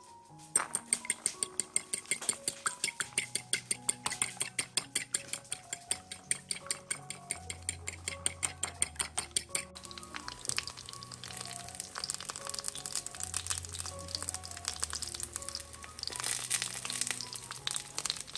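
Background music with a steady beat. From about halfway, eggplant pieces frying in oil in a pan sizzle and crackle under the music.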